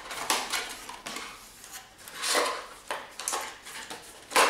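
Hands working a watch strap out of a recycled-cardboard watch box: a run of short scraping and rustling rubs, with a sharp clack near the end.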